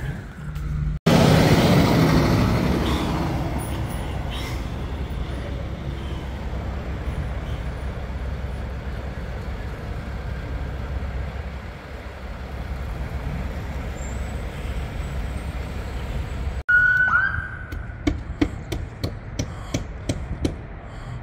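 Heavy fire truck's diesel engine running as it drives off, loud at first and settling to a steady low drone. About three-quarters through, after a cut, a short siren whoop rises and falls, then a run of sharp clicks.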